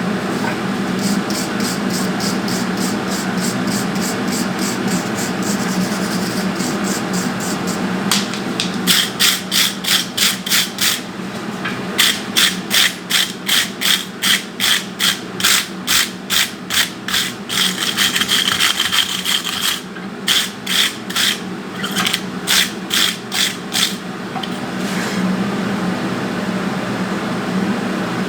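Wire brush scrubbing hot forged steel in quick back-and-forth strokes, about three a second, to clean the scale off, over a steady hum.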